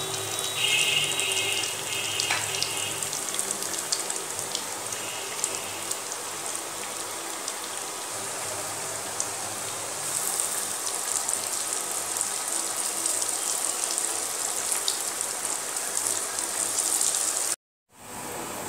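Egg-and-crumb-coated fish fillets sizzling in hot oil in a pan, a steady crackle of many fine pops. It cuts off suddenly near the end.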